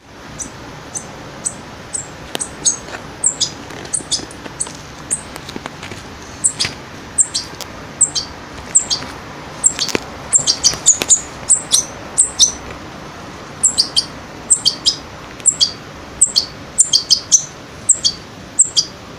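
Two-week-old European goldfinch fledgling giving food-begging calls while it is hand-fed: a rapid run of short, high, downward-sliding chirps, coming singly and in quick clusters of two or three.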